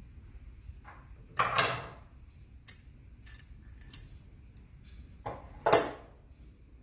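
Metal parts clanking: two loud knocks with a short metallic ring, about a second and a half in and near the end, with a few light clinks in between.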